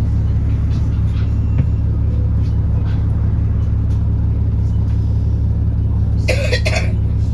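Alexander Dennis Enviro400 bus running with a steady, unchanging low drone from its engine and cooling fan, the loud 'hoover'. Near the end come two short, quick bursts of hissing noise.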